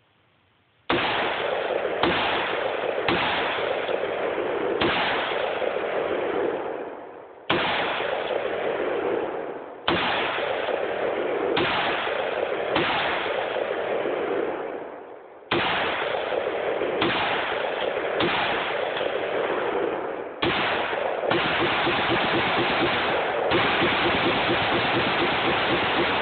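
DPMS Panther Arms AR-15 rifle fired semi-automatically, about fifteen shots starting a second in, spaced roughly one to two and a half seconds apart. Each shot is followed by a long rolling echo that has barely faded before the next.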